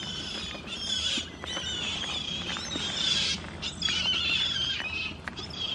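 Goat bleating loudly in long, wavering calls, about three in a row.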